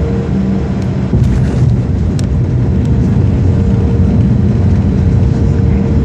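Aircraft engines and ground roll heard from inside the passenger cabin as the plane runs along the runway: a steady drone with a low rumble and a couple of steady tones, getting louder about a second in.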